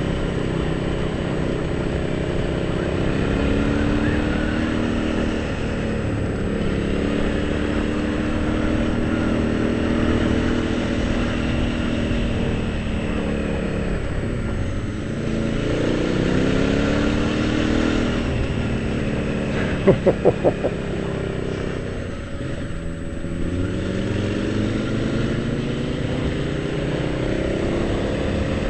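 Motorcycle engine heard from the rider's helmet camera over steady wind rush, its pitch rising and falling again and again as it accelerates and slows through the bends. About twenty seconds in comes a quick run of five sharp pops, the loudest moment.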